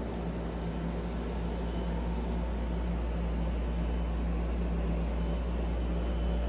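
Microgreen growing automation machinery running: a steady mechanical hum and whir over a deep low rumble, slowly growing a little louder.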